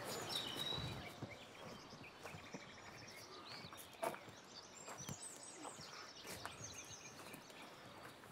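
Woodland birds singing, with short repeated chirps in the second half, over scattered footsteps and small knocks on the forest floor; one louder knock about four seconds in.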